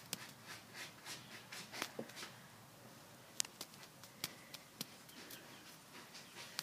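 Faint rustling and scattered sharp clicks from a Himalayan kitten batting at and biting a wand toy on a fleece blanket, with a few crisper ticks about halfway through.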